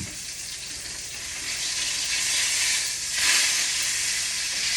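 Ground beef frying in a pan with a steady sizzle that swells, then turns louder about three seconds in.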